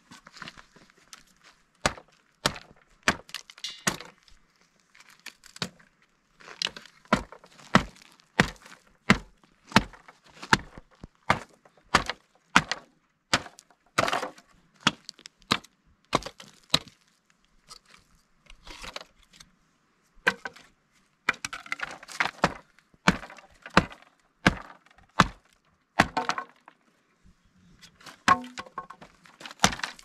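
Hatchet blows breaking up a wooden pallet: irregular sharp strikes, about one or two a second, with the slats cracking and splitting, and a short lull a little past the middle.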